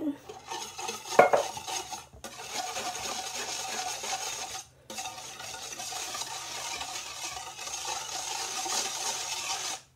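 Wire whisk stirring a thin liquid mixture of coconut milk, melted butter and sugar in a shallow metal pan, a steady scraping swish that breaks off briefly twice. A single sharp sound comes about a second in.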